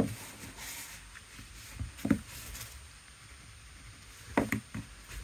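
A few light knocks of a water brush pen and a watercolour crayon being handled and set down on a desk, one about two seconds in and a quick pair near four and a half seconds, over a faint scratch of tools on paper.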